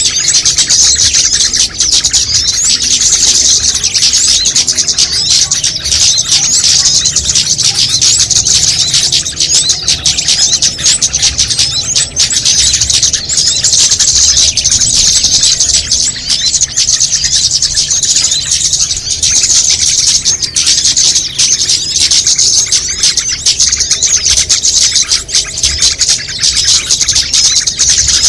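Dense, unbroken chorus of many small songbirds chirping and twittering at once, a mixed bird-lure call track of the kind played to draw small birds in.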